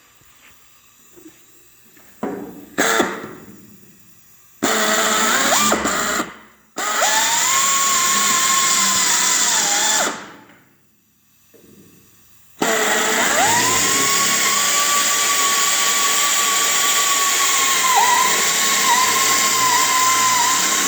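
Electric drill with a step bit boring quarter-inch hinge bolt holes through the sheet steel of a 1951 Ford truck bed. A couple of knocks come first, then the drill runs three times, short, short, then long, its steady whine dipping briefly in pitch a few times near the end.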